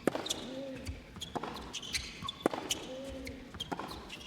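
Tennis rally: the ball is struck by rackets about once every second and a quarter, four strikes in all. Each strike is followed by a short grunt from the hitting player.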